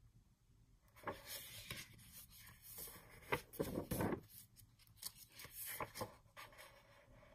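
Large sheets of a patterned paper pad being turned over by hand: paper rustling and sliding against paper in a run of short bouts, loudest about four seconds in.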